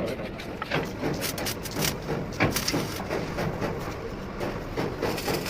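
Scattered, irregular knocks and clatter, a few sharp ones a second or less apart, over a steady background noise.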